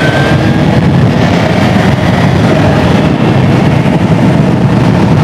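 Suzuki GSR 750's inline-four engine running through an aftermarket slip-on exhaust while the bike is ridden at a steady pace, a low, even exhaust note with no revving.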